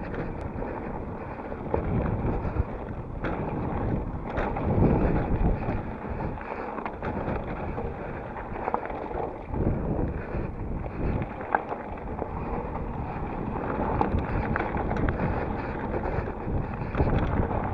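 Wind rushing over the microphone of a camera on a moving mountain bike, mixed with the tyres rolling over loose gravel and dirt, with scattered sharp knocks and rattles from the bike over rough ground.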